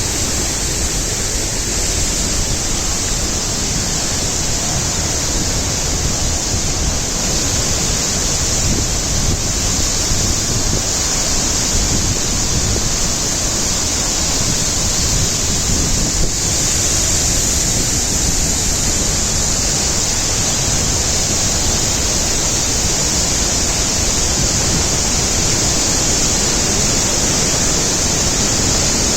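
Waterfall pouring: a loud, steady rush of falling water with no change.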